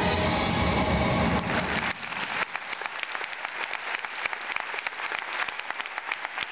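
A loud, rumbling recorded stage soundtrack stops about two seconds in. Audience applause follows, a dense patter of handclaps, until it cuts off suddenly at the end.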